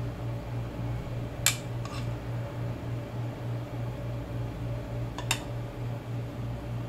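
A metal spoon clinking against the dishes while sauce is spooned over fried shrimp: sharp clinks about a second and a half in, again just after two seconds, and after five seconds. A steady machine hum runs underneath.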